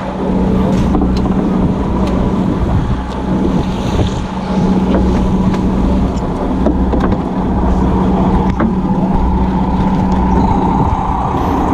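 A boat's engine running steadily with a constant hum, with wind buffeting the microphone.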